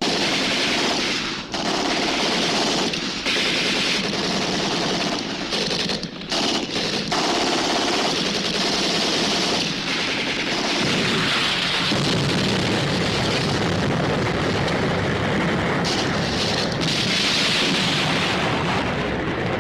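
Sustained machine-gun fire, long bursts broken by a few brief pauses.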